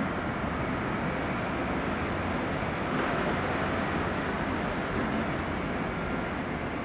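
Southeastern electric multiple-unit passenger train running along the track and moving away, a steady even noise of wheels on rail with no clear beat.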